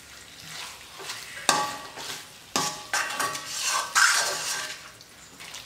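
Metal spoon stirring chicken pieces in thick masala in a stainless steel kadai, scraping and clinking sharply against the pan about four times, over a light frying sizzle.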